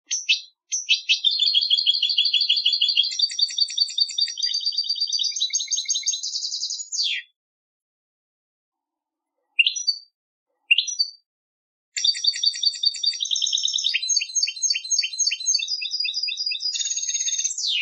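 European goldfinch singing contest-style song: two long phrases of rapid trills and repeated notes, each ending in a quick downward sweep, with two short call notes in the silent gap between them.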